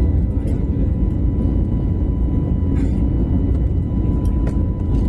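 Steady, loud rumble of a jet airliner's engines and rushing air, heard from inside the cabin, with a faint thin high whine running through it.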